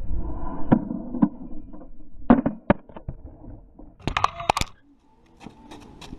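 A series of sharp knocks and clatters from building work, a few scattered at first, then a quick cluster with some ringing about four seconds in.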